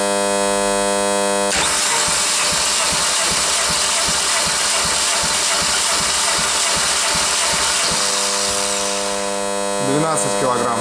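Ford 1.4 L Duratec FXJA four-cylinder petrol engine being cranked over for a compression test on cylinder one. From about a second and a half in, there is a whirring with a steady run of low pulses a few times a second as the cylinders come up on compression, lasting about seven seconds. A steady electrical hum sits underneath, and the gauge reads about 12 kg/cm², a healthy reading.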